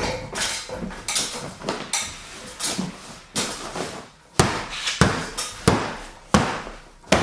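Hammer blows on wood: quicker, lighter knocks in the first half, then five sharp strikes about two-thirds of a second apart.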